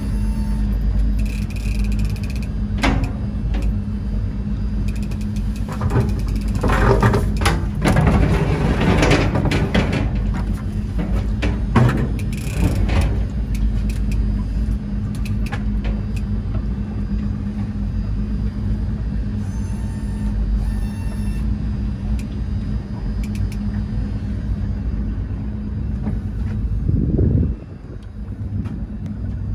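Boat engine running steadily at trolling speed, a low droning hum. It is overlaid by louder rustling noise from about six to thirteen seconds in, and the drone breaks off briefly near the end.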